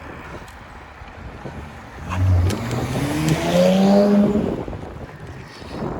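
Car engine accelerating hard: about two seconds in, the engine note climbs in several steps, then eases off and falls away near the end.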